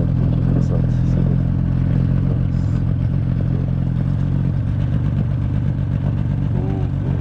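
Yamaha 30 two-stroke outboard fitted with a water-jet unit, running steadily at speed.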